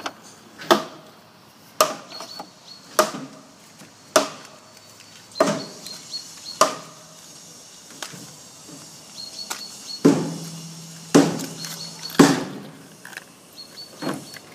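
A series of sharp knocks, roughly one a second, with a pause of a few seconds before the last few.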